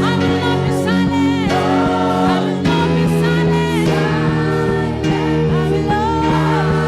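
Gospel worship song played live: singing over a band with sustained chords and a steady beat.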